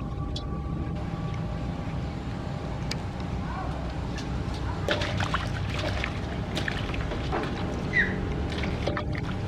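Water sloshing and splashing over a steady low rumble, with scattered knocks and clicks in the second half.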